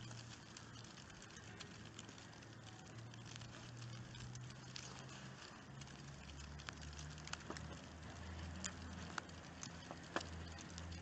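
Wet snow falling, with faint irregular pattering and ticking on surfaces. A steady low hum runs underneath and grows stronger about halfway through.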